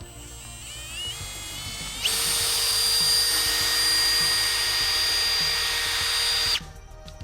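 Hammer drill's motor winding up with a rising whine, then running loud and steady for about four and a half seconds before it stops abruptly.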